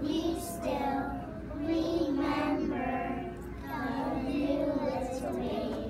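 A group of preschool children singing a song together in unison, with held notes that rise and fall.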